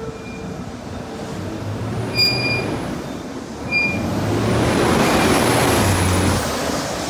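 City bus driving close past, its engine and road noise swelling to a peak and then fading as it pulls away, with two short high beeps about a second and a half apart just before it.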